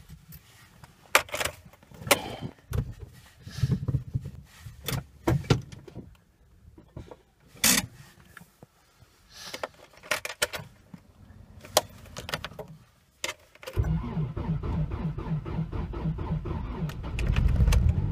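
Keys rattling and clicking in the ignition of a 1994 Honda Accord 2.0, then its four-cylinder engine cranked by the starter for about four seconds in a hard cold start at −16 °C. It catches and fires into a fast cold idle near the end.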